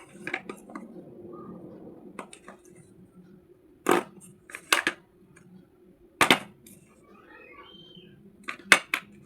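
Slate pencils being bitten and crunched close to the microphone: sharp, brittle snaps every second or so at an irregular pace, each followed by softer grinding chews.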